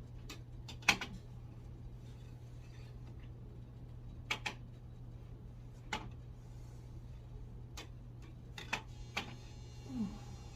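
Irregular sharp clicks and knocks, about nine of them, as a cleaning tool bumps against the ceiling fan's blades; the loudest comes about a second in. A steady low hum runs underneath.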